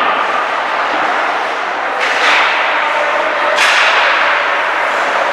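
Ice hockey play echoing in an arena: two sharp impacts against the rink boards, about two seconds in and again about a second and a half later, each ringing out in the hall over steady arena noise.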